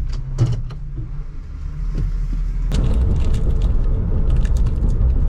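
Delivery van driving on the road: low engine and road rumble with scattered rattles and clicks. It grows louder about two and a half seconds in as the van speeds up.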